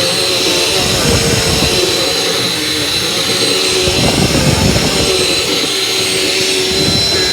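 Vacuum cleaner running with a steady high motor whine over a rushing air noise. A low rumble swells about a second in, again around four seconds, and near the end.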